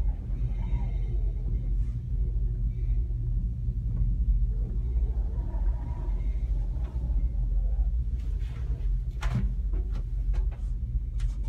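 Steady low rumble inside a moving gondola cabin as it rides the cable, with a couple of sharp knocks near the end.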